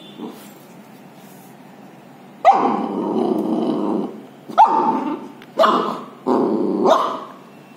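Puppy growling four times over its food bowl as a hand reaches toward it, each growl starting sharply and the first, about two seconds in, the longest: food guarding.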